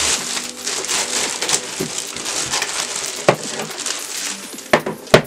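Keyboard packaging being opened by hand: continuous crinkling and rustling of wrapping and cardboard, with a few sharp knocks, the loudest two near the end.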